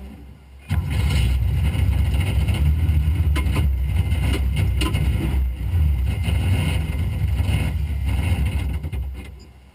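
Rally buggy's engine heard from inside the cabin: it comes in suddenly just under a second in, runs steadily for about eight seconds, then dies away near the end. The engine is suffering from a broken vacuum hose, which the team takes to mean the engine is broken.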